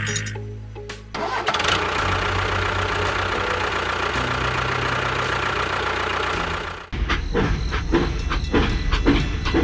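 A vehicle engine starting up about a second in and running steadily. About seven seconds in it changes to a quicker, rhythmic chugging.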